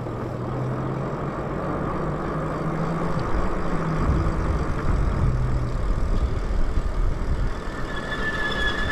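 Wind and road noise from riding an electric bike at speed, with a low steady hum that shifts in pitch a few times. A high steady whine comes in near the end.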